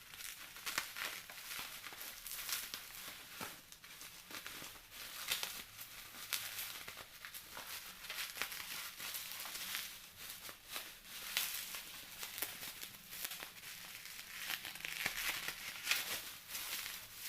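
Plastic packaging crinkling and rustling, handled in quick, irregular bursts, as a parcel is unwrapped.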